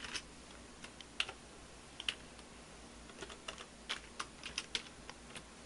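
Computer keyboard being typed on: a few spaced single key presses, then a quicker run of taps in the second half.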